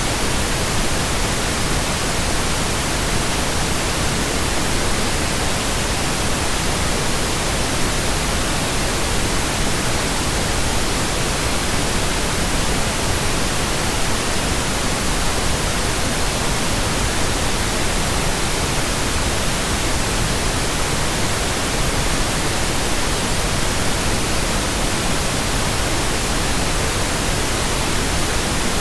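Steady pink noise: an even, unchanging hiss spread across all pitches.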